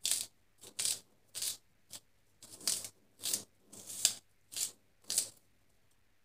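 A small knife slicing through a green onion stalk held in the hand, with no cutting board: about nine crisp cuts, one every half second or so.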